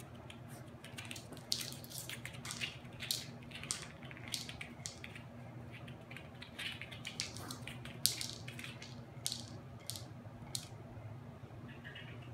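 Dry kibble clicking and rattling inside a plastic treat-dispensing wobble toy as a small dog noses it, mixed with the dog crunching the pieces that spill out. The clicks and crunches come irregularly and stop shortly before the end.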